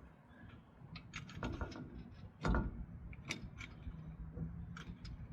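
Hand tools and bolts being worked: a series of irregular metallic clicks and clinks while nuts are run down on the crane's mounting bolts, with one heavier knock about halfway through.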